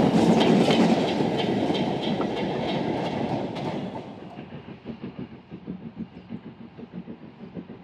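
Steam train running past, its rhythmic beats about three a second fading away as it recedes. About four seconds in, the sound changes abruptly to a fainter, quicker low pulsing of a train.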